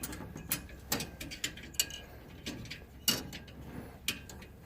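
Irregular light clicks and taps from a furnace flame sensor being handled and fitted back into its mount on the burner assembly, with one sharper click a little past three seconds in.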